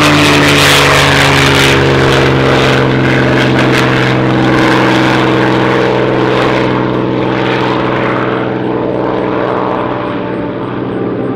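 P-51 Mustang's V-12 piston engine and propeller in a flyby: a loud, steady drone that fades gradually as the fighter climbs away.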